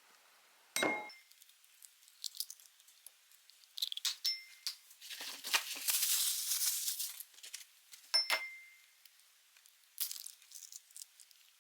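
Kitchen handling noises around a glass bowl: a few sharp clinks with a brief ring, and a noisy stretch of crinkling lasting about two seconds in the middle.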